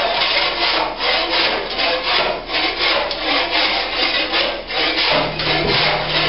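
Long-handled floor scraper pushed in repeated strokes over concrete, rasping as it pries up old floor tiles, about two scrapes a second. A steady low hum joins about five seconds in.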